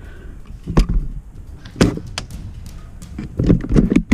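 Sharp cracks of airsoft rifle shots: two single shots about a second apart, then a quick cluster of cracks near the end.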